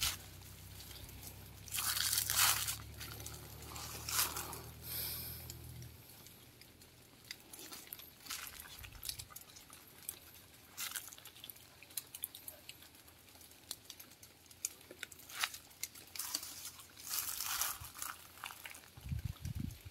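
Short crunching and rustling noises at scattered moments a few seconds apart, from street dogs feeding at a bowl and moving over dry fallen leaves. A low hum runs through the first six seconds and then stops.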